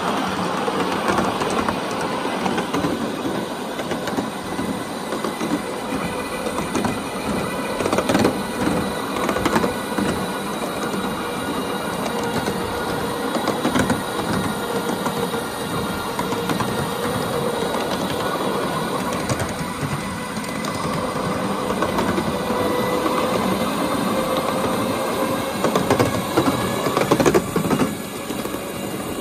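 Ride-on miniature railway electric locomotive running along the track: a steady motor whine that rises a little in pitch near the end, with occasional clicks and clacks of the wheels over the rail joints.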